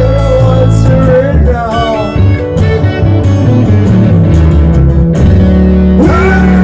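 Live band music with electric guitar and bass, with a sung line coming in near the end.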